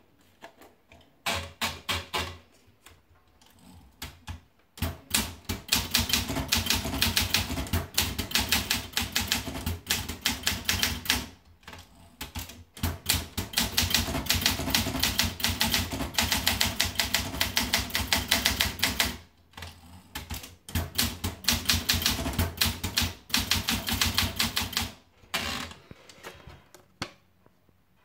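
Olympia Monica manual portable typewriter being typed on, its typebars striking the platen in fast runs of clicks broken by a few short pauses.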